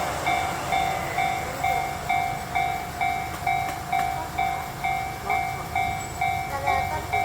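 Japanese railroad crossing warning bell ringing, a bright repeated clang at about two strokes a second, which signals that the crossing is closed with the barriers down for trains.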